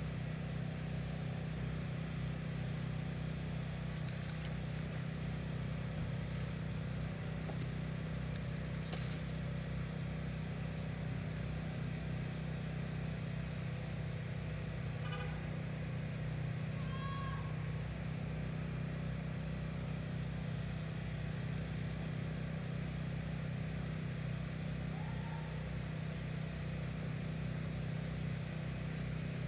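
Steady low mechanical hum, like an engine or motor running, unchanging throughout, with a few faint clicks.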